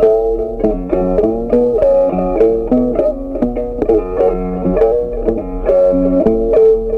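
Background music: a plucked string instrument playing a melody of short, quickly changing notes.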